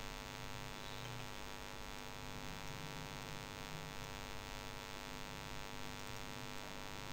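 Steady electrical mains hum with a stack of even overtones, at a low level.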